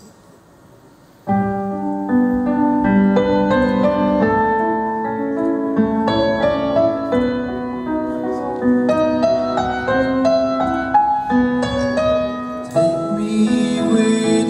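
Live stage piano playing a slow, gentle song intro after about a second of quiet: single notes and chords ringing on. Near the end more of the band joins in with a bright high shimmer and the music gets fuller.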